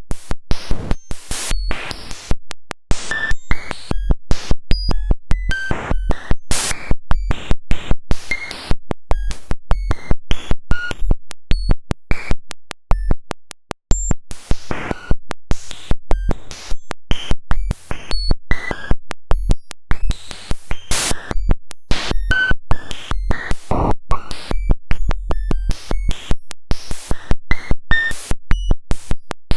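Cellular-automaton population data written straight to the waveform, giving a glitchy electronic stream of clicks, brief buzzing tones at jumping pitches, and bursts of noise that change every fraction of a second. Low thumps come in at times, and there is a brief near-gap just before the middle.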